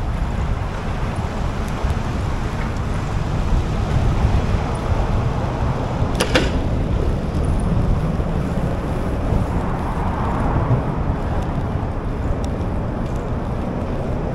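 Wind rushing over the microphone while cycling, a steady low rumble, with one sharp click about six seconds in.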